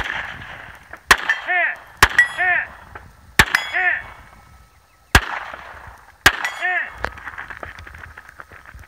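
Six rifle shots from a Larue PredatAR AR-15, about a second apart. Four of them are answered a fraction of a second later by the ringing clang of a distant steel target being hit.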